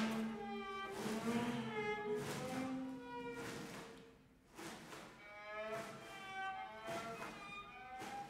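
Contemporary chamber music: several instrument tones hold and slide in pitch. Short rustles of glossy magazine pages being flipped by hand recur throughout, as part of the piece.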